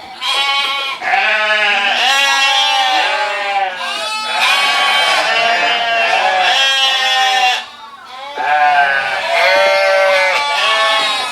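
A flock of sheep bleating loudly, many calls overlapping almost without a break, with a short lull about eight seconds in.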